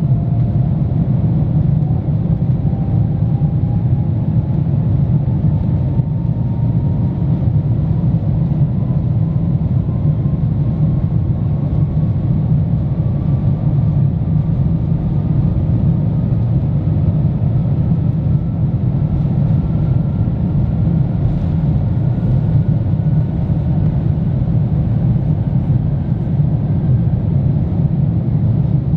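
Airliner cabin noise during the takeoff roll of an Airbus A350-900ULR, its Rolls-Royce Trent XWB engines at takeoff thrust: a loud, steady low rumble of engines and runway, with a faint tone slowly climbing in pitch.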